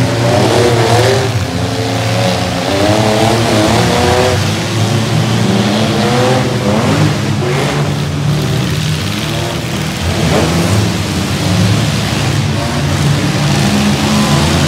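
Several demolition derby mini trucks' engines running and revving at once, their pitches rising and falling unevenly over a steady low engine drone.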